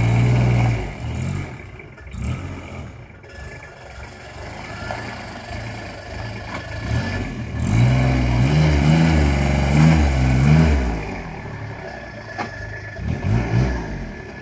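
Bobcat 2300 utility vehicle's engine revving as it drives off a gravel pile and pulls across the yard. The engine surges right at the start, and again more strongly from about eight to eleven seconds in.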